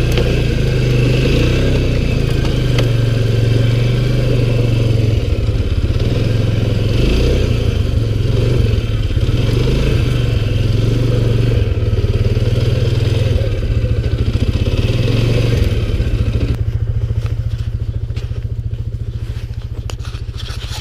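ATV (quad) engine running steadily while driving through snow. About three-quarters of the way through, the sound turns smoother and a little quieter as the engine eases off.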